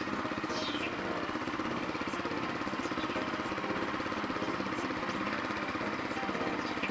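Enduro dirt bike engines running steadily at low speed, a continuous even putter.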